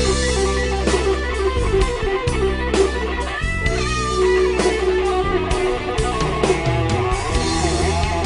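Electric guitar playing an improvised lead solo over a rock backing track with bass and drums, with bent, wavering notes about three and a half seconds in.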